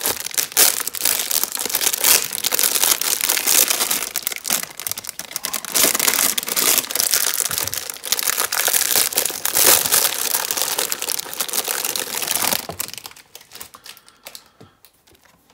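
Clear plastic wrapping crinkling as it is worked off a large megaminx puzzle. The crinkling stops about 13 seconds in, leaving a few faint handling ticks.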